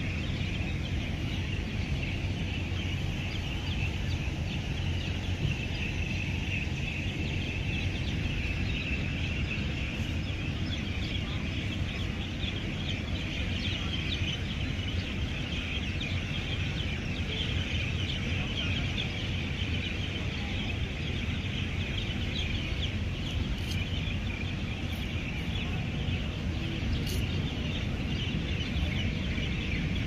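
Steady outdoor background din: a continuous high-pitched texture over a low hum, unchanging throughout, with no distinct calls or knocks.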